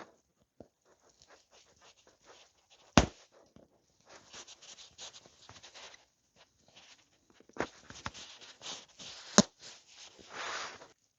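Flathead screwdrivers prying old upholstery staples out of a motorcycle seat base: faint scratchy scraping of metal against the seat, broken by sharp clicks as staples give, one loud click about three seconds in and two more in the second half.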